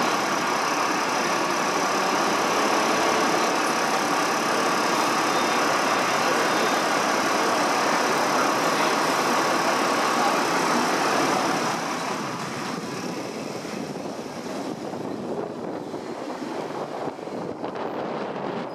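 Steady city traffic noise with a vehicle engine running close by, heard from the upper deck of a tram. The noise falls away noticeably about twelve seconds in.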